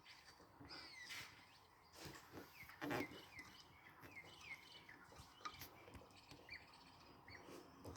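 Near silence with faint birds chirping in short calls throughout, and a few soft knocks.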